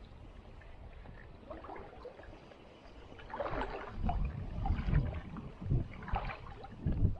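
Water sloshing and gurgling against a small boat on a river. About three seconds in, a run of irregular louder splashes and low thumps begins.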